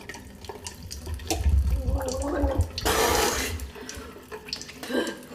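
Running water, loudest about three seconds in.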